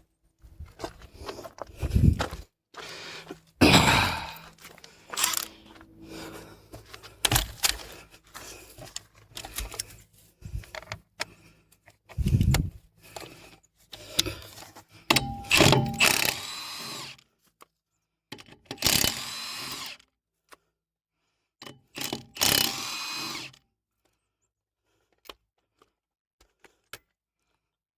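Impact wrench running on wheel lug nuts in several short runs of a second or two, between knocks and clanks of lug nuts and the wheel being handled.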